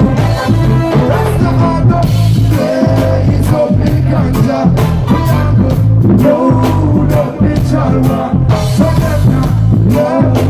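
Live reggae band playing loudly, with a steady drum beat and heavy bass.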